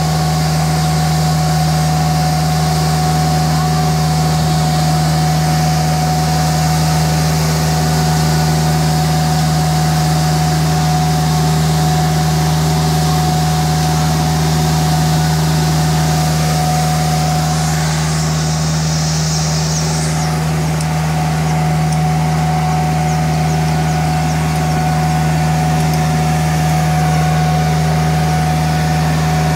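Nilfisk CR2250 ride-on sweeper-scrubber running steadily as it scrubs pavement: a constant droning hum with a steady whine above it and a hiss.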